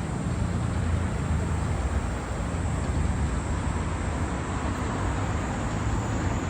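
Steady low rumble of street traffic noise, even and unbroken throughout.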